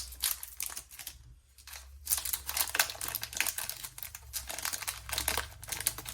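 Foil Pokémon booster-pack wrapper crinkling and rustling as it is handled and opened: a dense run of crackles, with a short lull about a second in.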